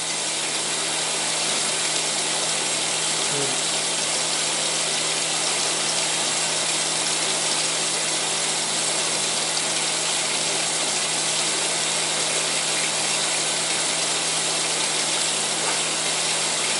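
Kitchen tap running steadily into a sink, a continuous rush of water with a steady low hum underneath.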